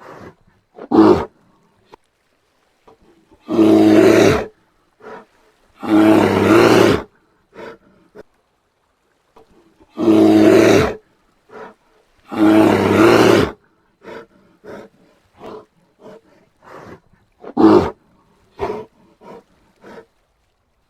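Brown bear roaring: four loud roars of about a second each, coming in two pairs, with many short calls between them.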